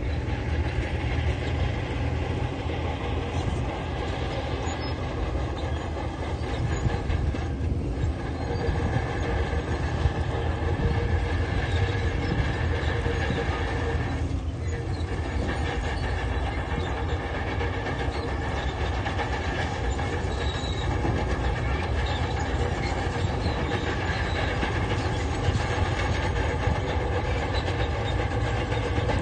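Crawler bulldozer's diesel engine running steadily while it works, with a continuous mechanical clatter.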